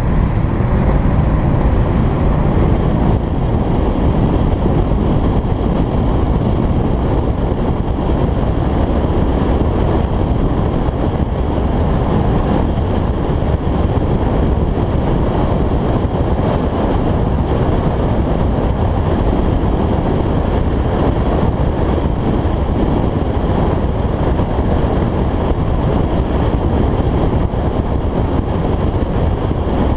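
A 2011 Jaguar XKR 175's supercharged V8 running steadily while cruising, its exhaust valves held open by the pulled fuse 19, mixed with wind buffeting the microphone. The sound is a loud, even rush with no revving up or down.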